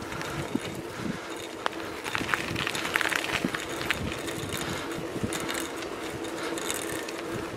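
Bicycle rolling along a tarmac lane: steady tyre and hub hum with scattered clicks and rattles, a denser run of them about two to three seconds in.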